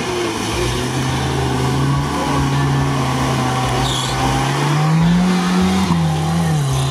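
Suzuki Samurai off-roader's engine running hard under steady throttle as it drives through a deep water pit, with water splashing, then revving higher about five seconds in as it climbs out up the bank and easing off near the end.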